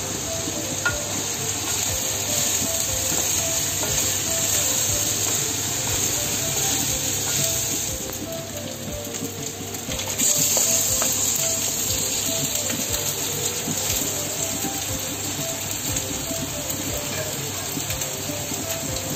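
Pork belly frying in a wok with a steady sizzle, over light background music. About ten seconds in, the sizzle jumps louder as a plate of sliced raw pork liver, kidney and heart is tipped into the hot pan and stirred in with a wooden spatula.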